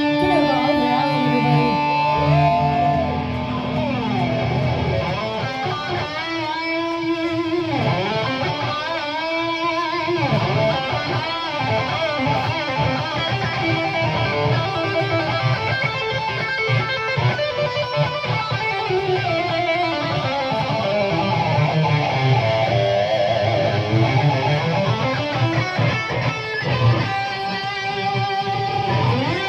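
Live rock band playing, led by an electric guitar over drums, with notes that bend up and down.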